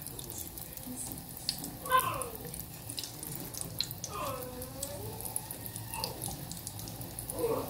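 Bolinho de chuva fritters of batter frying in hot oil in an aluminium pot: a steady sizzle with small pops and clicks. Short voice-like sounds rise over it about two seconds in and again around four to five seconds.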